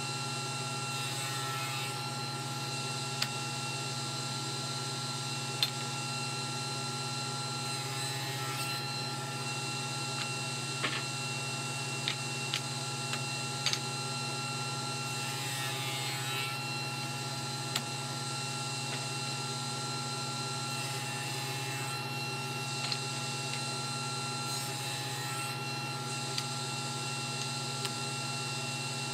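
Table saw motor running steadily, with about five short crosscuts through small wooden pieces. Each cut brings a brief rasping hiss and a slight sag in the motor's pitch. Light knocks of wood on the saw table come between the cuts.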